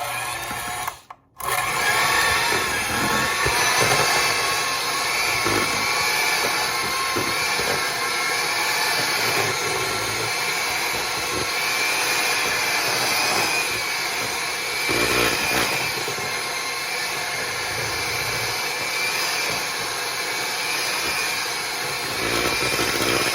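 Electric hand mixer whipping thick chilled coconut cream. The motor stops for a moment about a second in, then runs steadily with a slightly wavering whine as the beaters work through the stiff cream.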